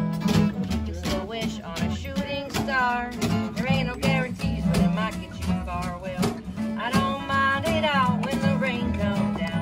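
Two acoustic guitars playing a country-style song together, with a voice singing over them in phrases.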